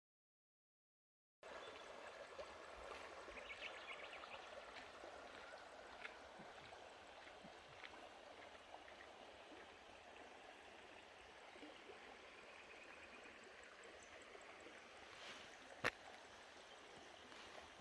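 Creek water running, a faint steady rush that starts after about a second and a half of dead silence. A single sharp click sounds near the end.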